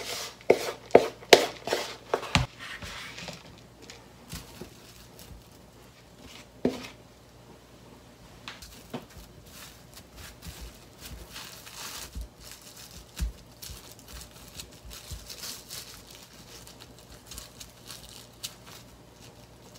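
Rubber spatula knocking and scraping crumbly cookie dough out of a plastic mixing bowl, a quick series of knocks over the first couple of seconds. Then soft crinkling and rustling of cling wrap as hands press and roll the dough into a log, with an odd single knock.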